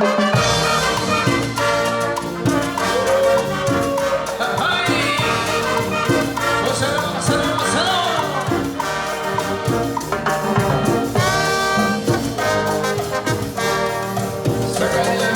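Peruvian brass band playing a cumbia, brass horns carrying the melody over a steady percussion beat.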